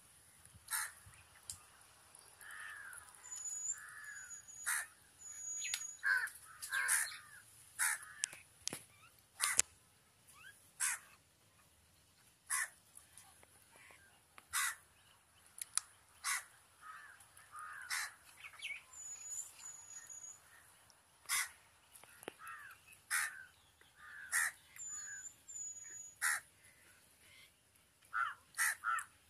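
Crows cawing again and again, mixed with many sharp clicks and a few short high bird chirps over a steady faint high hiss.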